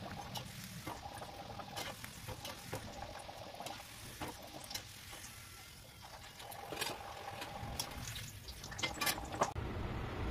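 Kachoris frying in oil in a steel kadhai, a steady sizzle with sharp clinks of a metal slotted spoon against the pan.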